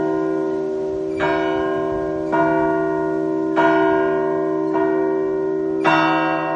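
Russian Orthodox church bells rung by hand in a festive zvon: a fresh bell stroke about once a second, the strokes changing in pitch, over the long ringing hum of a larger bell.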